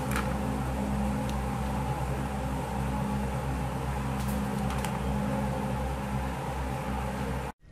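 Steady low background hum with a noisy hiss above it, broken by a few faint clicks, cutting off suddenly near the end.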